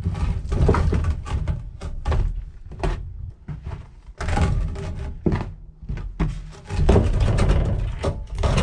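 Irregular series of heavy thuds and knocks: a small log being handled and loaded onto the steel bed of a portable sawmill.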